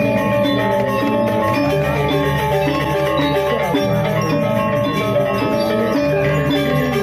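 Balinese gamelan playing steadily, bronze metallophones ringing in interlocking patterns over drums.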